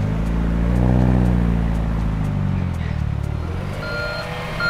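A running vehicle engine revs up once and falls back over about three seconds. Near the end a truck's reversing alarm starts beeping.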